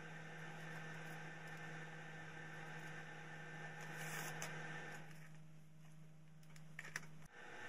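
Faint room tone with a steady low electrical hum that cuts off near the end, with a few soft clicks just before it stops.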